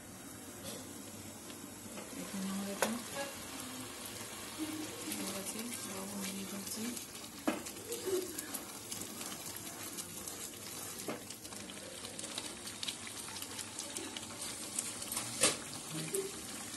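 Thick creamy paneer gravy bubbling and sizzling in a nonstick pan while a wooden spatula stirs it, with a few sharp knocks of the spatula against the pan.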